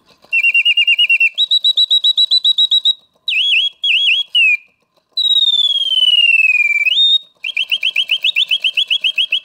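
Reuge singing bird box's mechanical bird singing as the clock's alarm. It whistles quick trills and swooping chirps, with a long note falling in pitch just past the middle and a few brief pauses.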